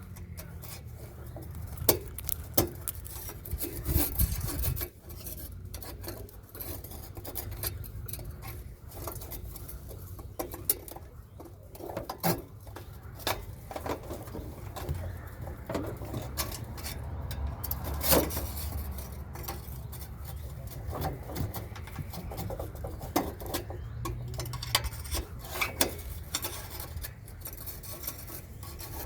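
Irregular light metallic clinks and clatter over a low steady hum.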